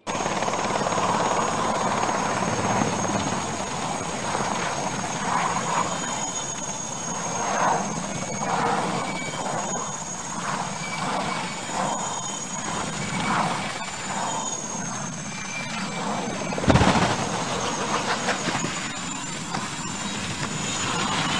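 Military Aérospatiale Puma helicopter running in a low hover, its rotor noise steady under a high wavering turbine whine. About three-quarters of the way through, a sudden loud crash as the helicopter hits the ground.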